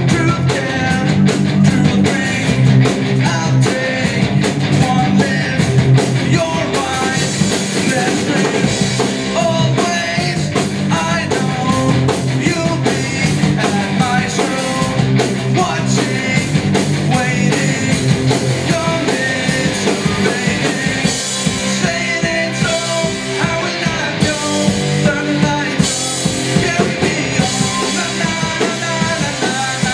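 Punk rock band playing live at a fast pace: electric guitars, bass guitar and drum kit, with a singer's vocals over them.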